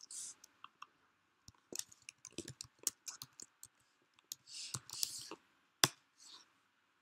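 Typing and mouse clicks at a computer: a quick run of key clicks through the middle, mixed with a few short hiss-like noises, and one sharp click near the end, the loudest of all.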